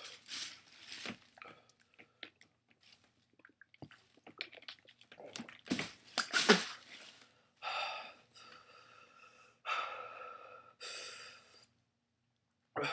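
A man breathing hard through his mouth against the burn of a superhot chili: short sharp puffs and sniffs, loudest about six seconds in, then three longer breathy exhales.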